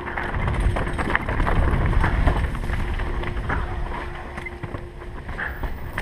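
Wind buffeting the microphone of a camera riding on a downhill mountain bike, with the rattle and frequent sharp knocks and clacks of the bike rolling down a rough trail.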